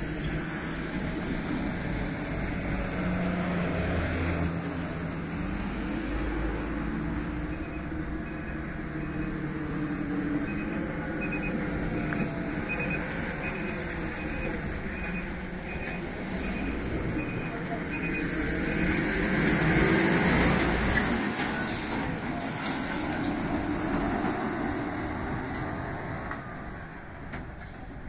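Motor vehicle engine running and passing, loudest about twenty seconds in. A faint evenly spaced beeping sounds through the middle.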